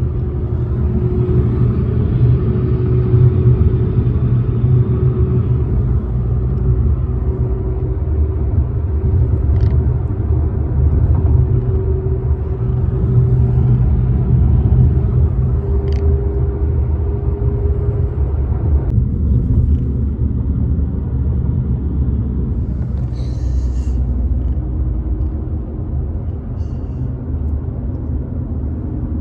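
A car driving along the road, heard from inside: a steady low rumble of engine and tyre noise with a faint wavering hum. A few faint clicks occur throughout.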